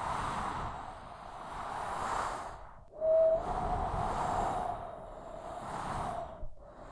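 Strong desert storm wind blowing in gusts that swell and fade, dropping almost away twice. A brief whistle about three seconds in, rising slightly in pitch, is the loudest moment.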